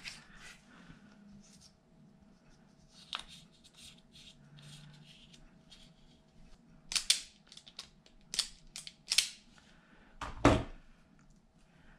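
Small clicks and rustles of hands handling copper ring terminals, plastic terminal covers and cable on a table, with a louder knock about ten and a half seconds in.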